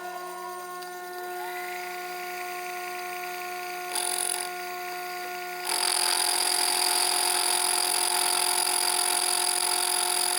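Small Sherline machine tool running with a steady motor whine, its pitch rising briefly early on. About halfway in a louder, even hiss of the cutting tool facing off a small metal part joins and holds.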